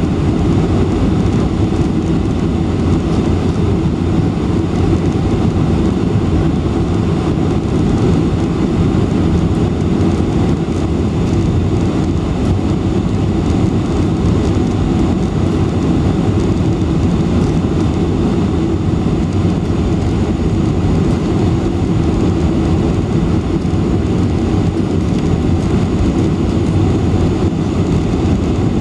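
Steady cabin roar of a Boeing 747-400 on final approach, engine and airflow noise heard from a window seat beside the wing with the flaps extended. The noise holds level, heaviest in the low range.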